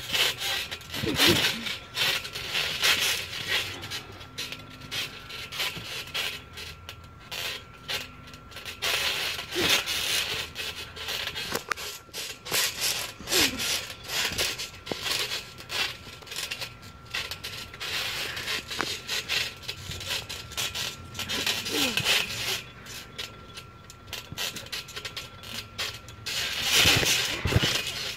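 Wrestlers bouncing, stomping and rolling on a trampoline mat, which gives irregular bursts of rubbing and friction noise, louder every few seconds.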